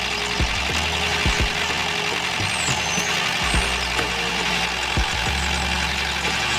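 A small engine running steadily with a low hum and irregular sharp knocks and clicks.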